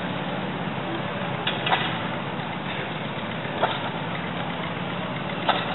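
Engines running steadily in the background, a continuous drone, with a short sharp click or pop about every two seconds.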